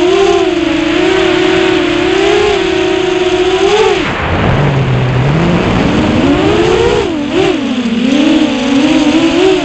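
Six-inch FPV quadcopter's brushless motors (2407 1850KV on 6S) whining, the pitch wavering with throttle. About four seconds in the pitch drops sharply as the throttle is cut, then rises back up over a couple of seconds as the motors spool up again.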